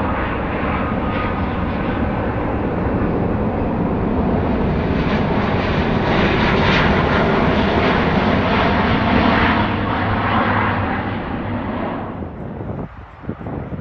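Airbus A350's Rolls-Royce Trent XWB turbofan engines as the jet passes. The sound swells to a peak about halfway through and fades off near the end.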